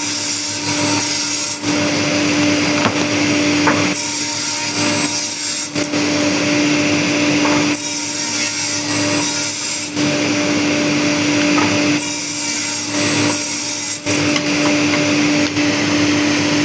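Electric cutting machine running with a steady motor hum. Its cutting noise grows louder and hissier for about two seconds out of every four, in a regular cycle.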